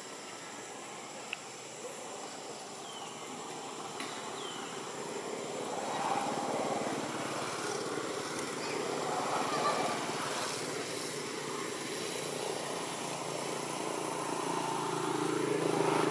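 Outdoor background noise with a motor vehicle's engine, such as a passing motorbike, running and growing louder toward the end.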